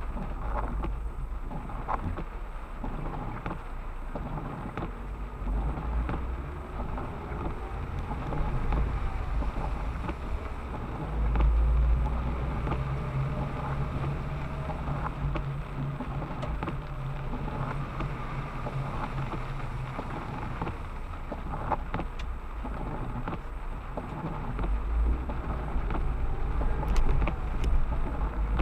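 Outdoor ambience with wind buffeting the microphone in low rumbling gusts, and a motor vehicle engine running steadily through the middle stretch.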